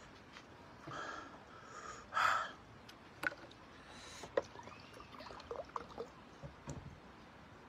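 Two hard, hissing breaths out through the mouth, the second louder, from a person suffering from the burn of a very hot chili. Then a sports drink is poured from a plastic bottle into a small glass, with small clicks and short gurgles.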